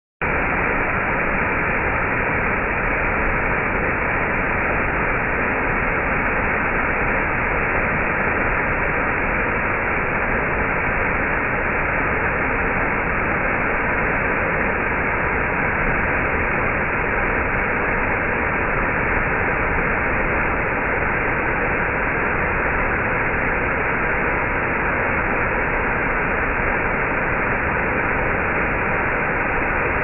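Waterfall pouring in a curtain over a rock overhang close at hand, a steady, unbroken rush.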